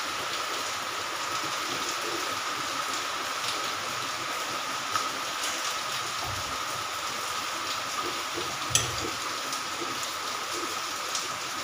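Thick mung dal with fish head bubbling at a boil in a metal pan on a gas stove, a steady hiss, as a ladle stirs it, with a light knock about nine seconds in.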